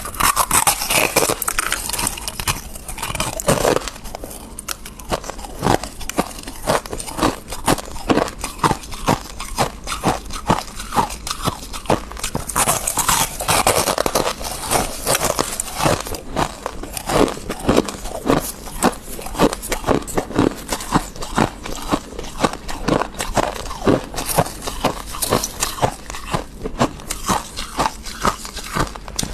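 A person chewing freezer frost: squeaky, rapid crunches, several a second, with louder bite-and-crush bursts near the start and again about halfway through.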